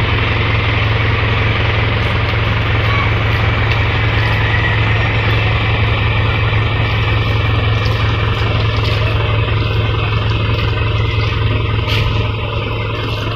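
A motor vehicle's engine idling steadily, a constant low hum with no change in speed.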